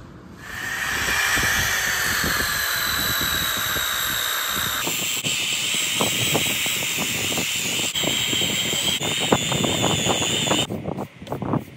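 Electric random orbital sander starting up and running with a steady high whine, its pad scratching over an epoxy-filled pecky cypress tabletop. The whine changes pitch about five seconds in, and the sander stops shortly before the end.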